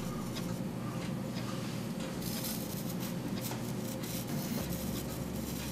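Pointed steel carving tool scratching pattern lines into the inside of a refractory plaster mold for pâte de verre glass: a steady, dry scraping with faint repeated strokes.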